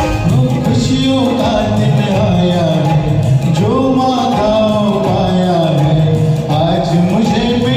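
Hindi song sung to a karaoke backing track: a man's voice carries a gliding melody over continuous recorded accompaniment.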